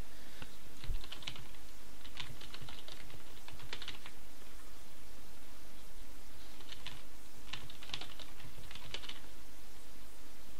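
Computer keyboard typing in several short runs of keystrokes with pauses between, over a steady low background hum.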